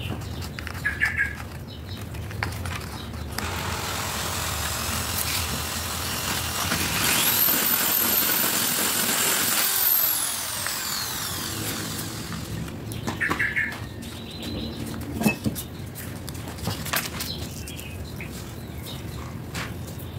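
A motor spins up to a high whine, holds it for a couple of seconds and then winds down slowly, over a broad rising and falling noise. There are short chirps near the start and again near the middle.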